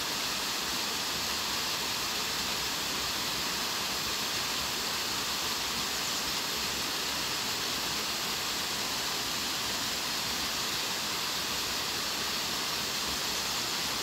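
Small waterfall splashing onto rocks and a shallow stony creek: a steady, even rush of falling water.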